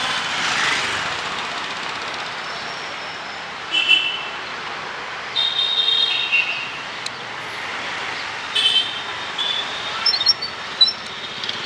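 Short, high-pitched vehicle horns honking several times, about four seconds in, around six seconds, near nine seconds and in a quick cluster near the end, over a steady wash of street traffic noise.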